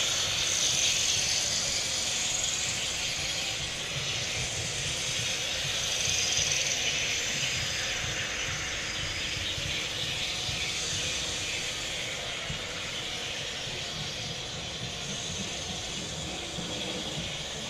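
Steady rushing hiss over a low rumble, slowly fading.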